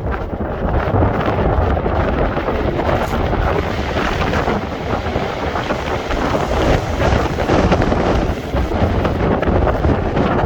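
Strong wind buffeting the microphone over the rush of a stormy sea's surf, a loud continuous noise with a heavy low rumble that swells and eases.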